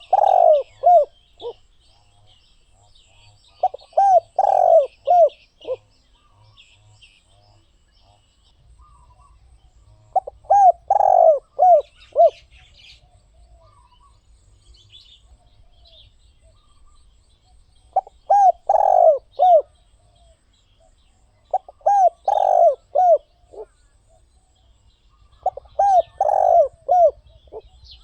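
Spotted dove cooing: short phrases of several low, arching coos with the loudest note in the middle, repeated every few seconds. Faint high chirps of small birds sound between the phrases.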